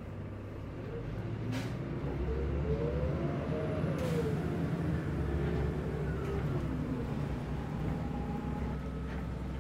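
City bus engine and drivetrain running, heard from inside the cabin. The drone grows louder over the first few seconds and then holds, with a whine that rises and then falls in pitch, and a couple of sharp clicks.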